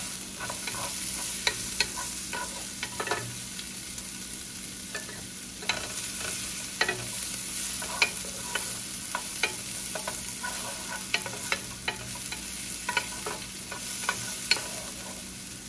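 Chopped garlic and onion sizzling as they sauté in a square copper-coloured pan, while a wooden spatula stirs them, scraping and tapping against the pan's bottom in irregular strokes.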